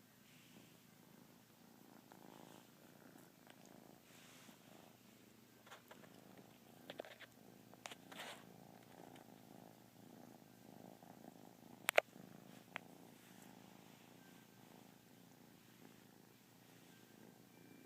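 Kitten purring steadily and faintly. A few short sharp clicks come in the middle, the loudest about two-thirds of the way through.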